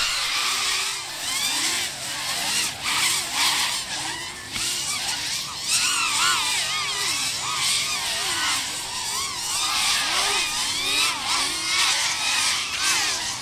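Several FPV racing quadcopters flying flat out, their brushless motors and propellers whining in overlapping tones that rise and fall constantly as the pilots work the throttle through the turns.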